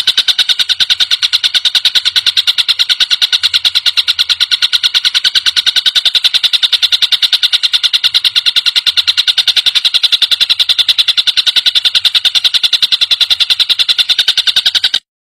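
Tengkek buto, a kingfisher, giving a long, loud, rapid rattling call series of evenly repeated high notes at about ten a second. The series runs unbroken for about fifteen seconds, then stops abruptly.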